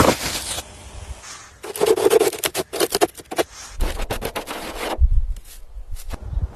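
Irregular scraping and rubbing strokes, uneven in length, with short pauses between bursts.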